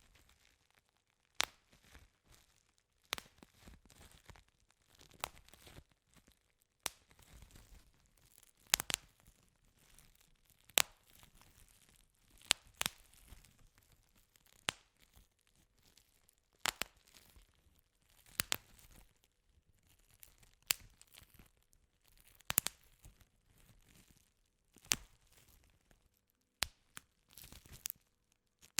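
Bubble wrap pressed by hand, its plastic bubbles splitting one at a time with sharp pops about every two seconds, and soft crinkling of the plastic between pops.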